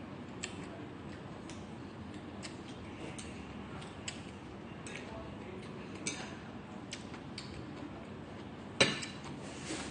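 Scattered small clicks and taps of someone eating at a table set with plates and cutlery, with one sharper knock near the end, over a steady room hum.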